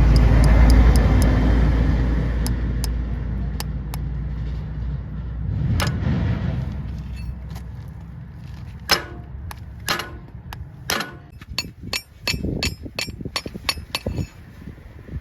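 A low rumble that fades over the first several seconds, then a run of sharp, irregular knocks and clicks through the second half.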